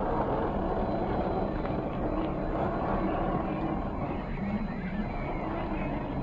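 1/10-scale RC crawler's 540 brushed motor and geared drivetrain running steadily under load as it climbs a rock slab.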